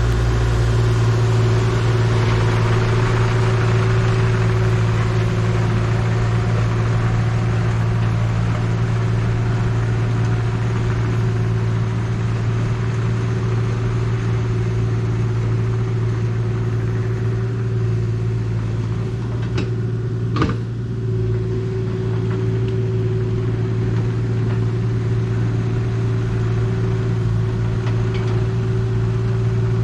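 Engine of a tracked work machine running steadily at a constant speed, with one short sharp knock about two-thirds of the way through.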